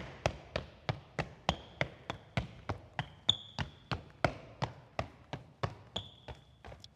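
Running footsteps on a wooden floor, about three steps a second, each footfall echoing in a large, empty church. A few brief high tones, like squeaks, come between steps.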